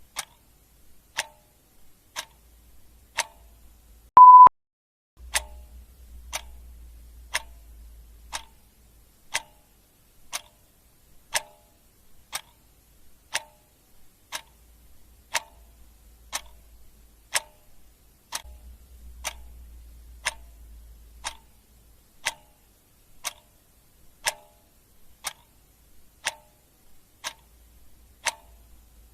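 Clock ticking steadily, about one tick a second. A single short beep about four seconds in is the loudest sound.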